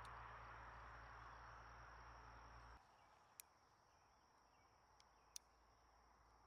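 Near silence: faint background hiss and hum that drops away abruptly about three seconds in, with a thin steady high tone and two or three faint clicks.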